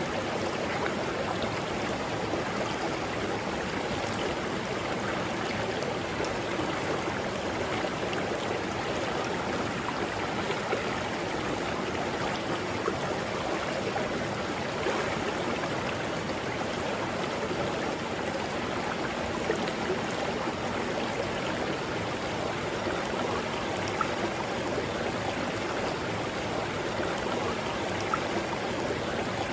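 Mountain river rushing steadily over rocks, a continuous flow with small splashes and gurgles throughout.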